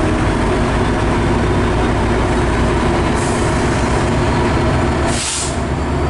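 MARC commuter train's diesel locomotive running close by, its engine a steady low rumble, with two short hisses about three and five seconds in, the second louder.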